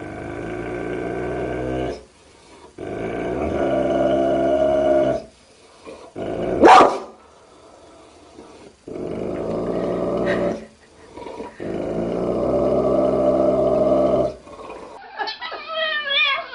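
A cat growling in four long, low, drawn-out growls, with a short, sharp, high cry between the second and third, the loudest moment. Near the end, higher wavering calls begin.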